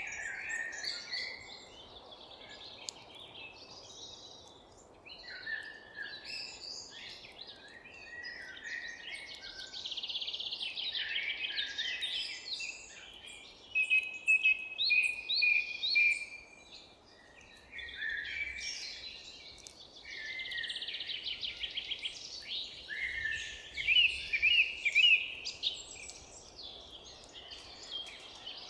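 Several birds singing and chirping at once, with overlapping trills and quick runs of notes, over a faint steady background hiss.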